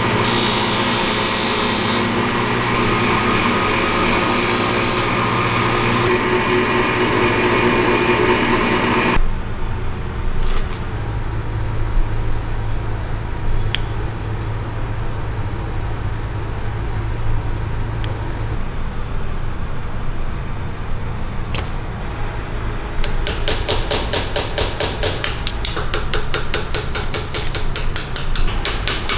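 A small metal part is ground on a grinding wheel with a loud, steady grinding noise that cuts off suddenly about nine seconds in. A low motor hum follows with a few scattered clicks as a handheld rotary burr works a brass fitting held in a vise. From about 23 seconds, a small hammer taps a chasing chisel in rapid, even strokes, engraving a pattern into the brass.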